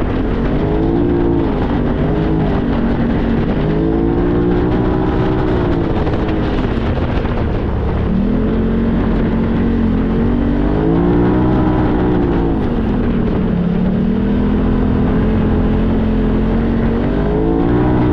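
Polaris RZR side-by-side engine running under way, its pitch rising and falling again and again as it speeds up and slows down.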